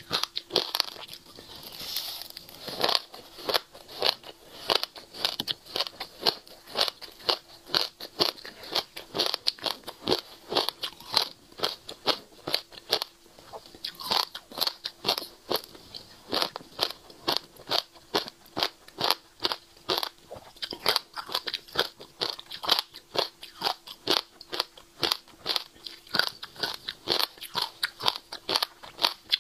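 Passion fruit seeds crunching and crackling between the teeth as a mouthful is chewed close to a clip-on microphone, in crisp crunches about two or three a second.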